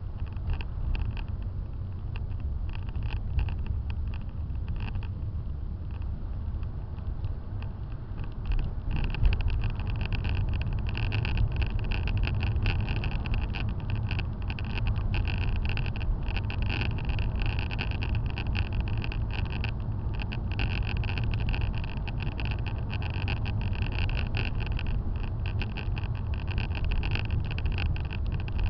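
Road and engine noise inside a moving car, picked up by a windscreen dashcam: a steady low rumble with a hiss above it, growing louder about nine seconds in.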